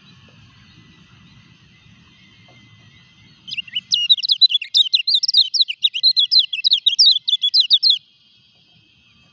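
Kecial kuning, a white-eye, singing a rapid string of high, sharp chirping notes for about four seconds, starting a few seconds in. The bird is in moult and is still singing.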